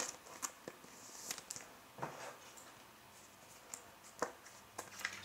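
Faint, scattered clicks and light rustles of a trading card and a rigid plastic top loader being handled as the card is worked into the holder.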